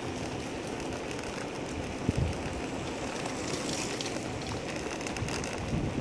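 Wind and movement rushing on a hand-held microphone while walking fast on a paved path behind a husky pulling on its lead, with irregular footfalls and a couple of knocks about two seconds in.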